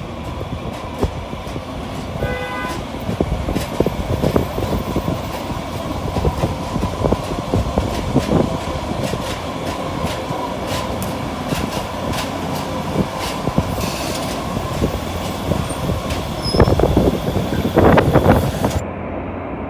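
Two-car Muni Breda light-rail train passing close by on street track: a steady rumble with many sharp clicks of the wheels over the rails. A short pitched tone sounds about two and a half seconds in, and the train is loudest just before the end.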